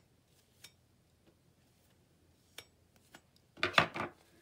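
A few light clicks of craft tools being handled on a work mat, then a brief loud rustle and scrape of several quick strokes near the end, as of wiping up with a baby wipe.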